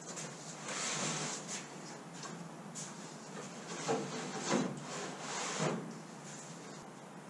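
Thin wooden hull-bottom sheet scraping and rubbing over the wooden boat frame as it is slid into position. A run of rough scrapes, with a few louder ones between about four and six seconds in.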